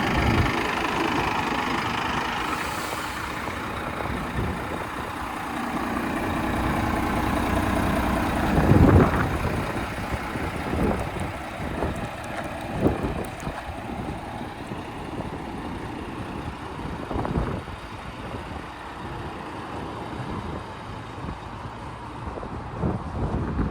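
Volvo FM330 truck's diesel engine idling steadily, with a loud thump about nine seconds in and scattered knocks after it.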